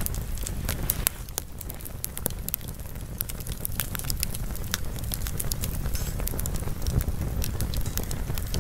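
Campfire crackling, with frequent irregular sharp pops over a steady low rush.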